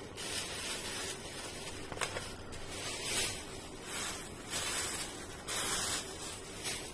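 Thin plastic carrier bag crinkling and rustling as hands handle it, in repeated irregular bursts.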